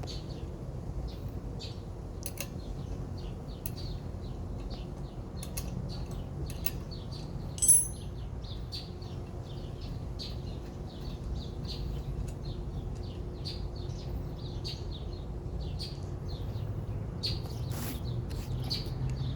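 Small birds chirping repeatedly in short, irregular notes over a steady low hum, with one louder sharp ringing click about eight seconds in.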